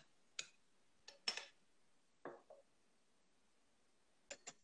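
Soft scattered clinks and knocks of a long metal bar spoon and small containers being handled: a plastic measuring cup and a soy sauce bottle. About eight short taps, the loudest a little over a second in, with two quick ones near the end.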